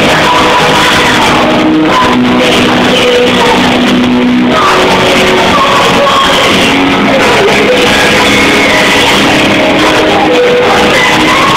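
Live pop-rock band with guitar playing while a woman sings a melody into a microphone, recorded loud from the audience in a concert hall.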